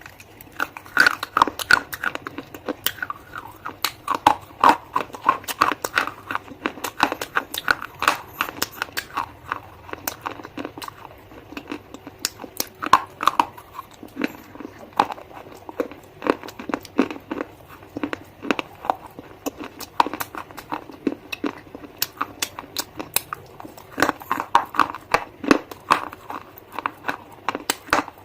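A person bites and chews hard, brittle bars close to the microphone, giving a dense run of sharp crunches. Heavier bursts of crunching come about a second in, again over several seconds soon after, and near the end.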